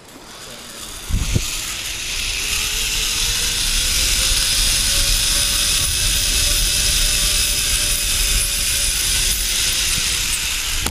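Zip-line trolley pulleys running along the steel cable at speed: a loud whirring hiss that builds after a knock about a second in and then holds steady, with a faint whine that rises a little and sinks again as the rider speeds up and slows. Wind rumbles on the moving microphone underneath.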